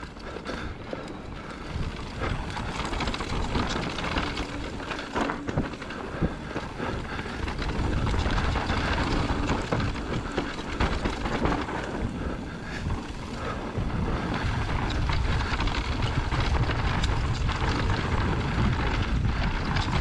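Trek Rail electric mountain bike descending a rough dirt trail: tyres rolling over dirt and rocks, with frequent knocks and clatter from the bike over bumps, under wind rushing on the action-camera microphone. The low wind rumble gets heavier about eight seconds in.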